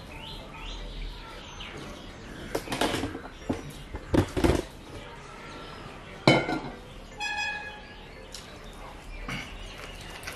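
Close-up eating noises as a man wolfs down handfuls of chicken biryani, with a few loud bursts of chewing and swallowing and a single sharp knock about six seconds in. Small birds chirp in the background.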